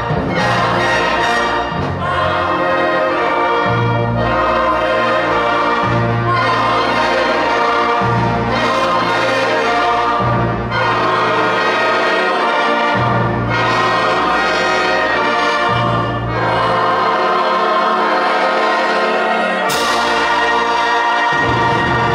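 Concert wind band and mixed choir performing together: brass and choir hold full sustained chords, with the bass changing about every two seconds. A cymbal crash comes near the end.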